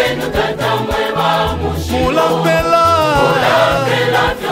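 Choir singing a Bemba gospel song in parts over a backing track with a steady bass line and drum beat.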